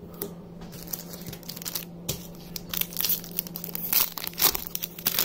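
Booster pack wrapper being crinkled and torn open: a quick run of crackles that grows busier from about halfway, over a faint steady low hum.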